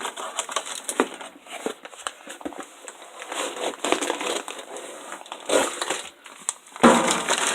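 Irregular clicks, knocks and crinkling as a new center punch set is taken out and handled, with a louder clatter near the end.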